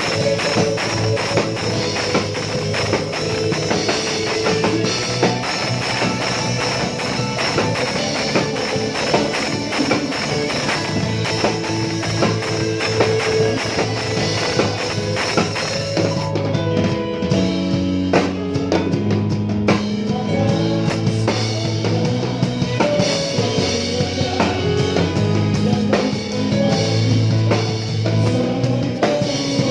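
Live band music led by a drum kit playing a steady beat with bass and guitar. About sixteen seconds in the cymbals drop out for a sparser passage, and the cymbals come back in around twenty-three seconds.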